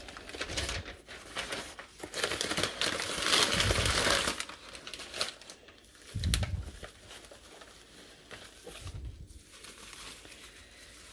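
Newspaper packing paper crinkling and rustling as it is unfolded and pulled out of a cardboard box, loudest a few seconds in, with a few dull bumps of handling and quieter rustling near the end.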